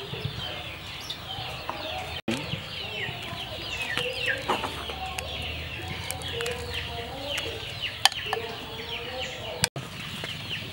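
Chickens clucking, with many short, high, falling chirps throughout. The sound drops out briefly twice.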